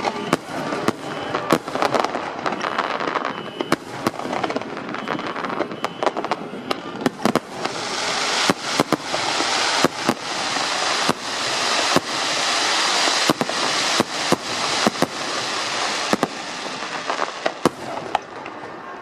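Aerial fireworks show: shells bursting in quick, irregular succession, with a dense hissing crackle that swells up for several seconds in the middle and then fades.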